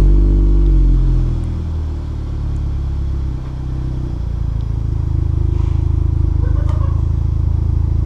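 2015 Kia Optima SX Turbo's 2.0-litre turbocharged four-cylinder running through a freshly installed ARK Performance DT-S exhaust and test pipe, just after starting: it flares up loudly for about a second, then settles over the next few seconds into a steady idle.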